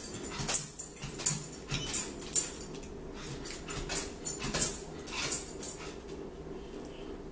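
Eating sounds: metal forks clicking and scraping against plates, and chewing, in a handful of short sharp clicks spread over the first five seconds.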